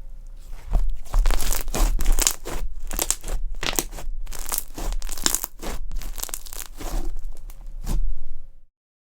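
Crunchy slime being squeezed and pressed by hand, giving crackling, crunching pops in repeated bursts about twice a second. It cuts off suddenly near the end.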